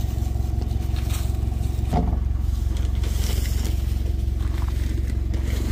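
Box delivery truck's engine idling with a steady low drone, and a single knock about two seconds in.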